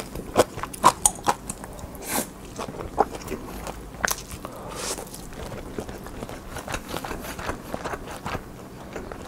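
Close-miked eating sounds: wet lip smacks and mouth clicks, two short slurps, then steady chewing of a mouthful.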